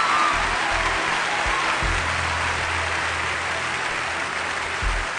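Audience applauding over stage music with a pulsing bass line.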